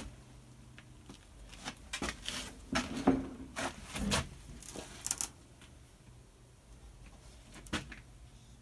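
A series of light knocks and clatters as parts of a taken-apart plasma TV are handled, bunched in the first five seconds, with one more sharp knock near the end.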